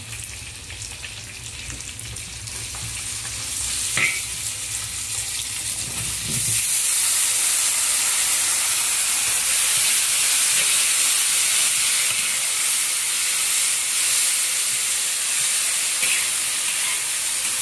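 Food sizzling in hot lard in a large iron wok while a metal spatula stirs and scrapes it. The fat is frying diced scallions, then pickled big-leaf celery and potato. About six seconds in, the sizzle grows clearly louder and stays that way, and a low hum underneath stops.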